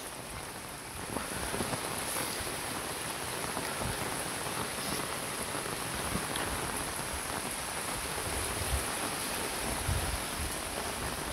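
Steady rain falling on a wet concrete lane and brick walls, slightly louder from about a second in.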